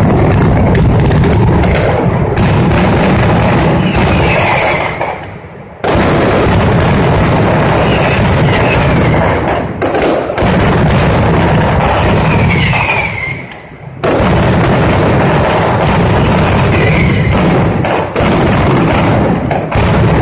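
Mascletà: a dense, continuous barrage of ground-level firecrackers exploding, easing off briefly about five and thirteen seconds in before starting again. Falling whistles sound over the bangs.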